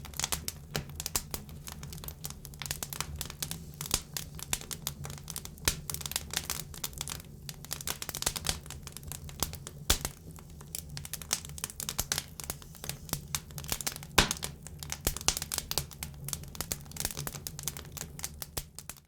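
Campfire burning close up: dense, irregular crackling and popping over a steady low roar of the flames, with a few louder pops, one of the loudest about fourteen seconds in. The sound cuts off abruptly at the end.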